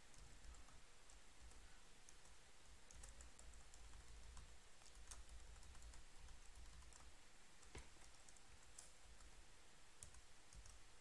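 Faint, scattered clicks of a computer keyboard and mouse, a second or two apart, over a low background hum.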